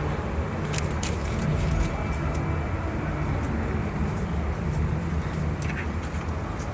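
Steady low rumble of outdoor background noise, with a few faint clicks scattered through it.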